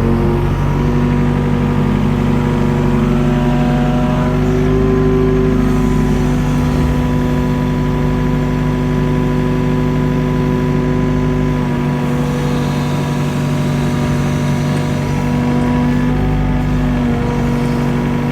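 Mini excavator's diesel engine running steadily at working speed while the machine digs, with a few fainter tones that shift slightly now and then.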